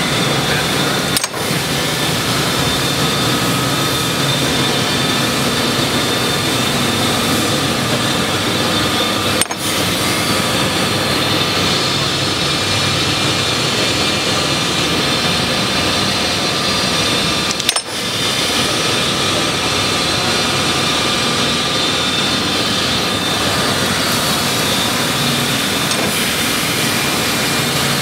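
Large Mattison surface grinder running under power: a steady mechanical whir and hum, with three brief dips in level.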